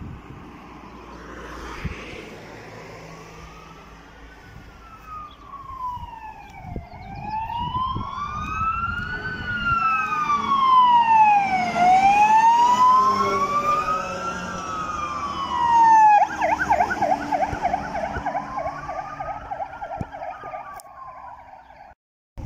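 Fire engine's siren wailing, its pitch rising and falling slowly about every five seconds and growing loud as the truck passes, then switching to a fast yelp about sixteen seconds in; it cuts off abruptly near the end.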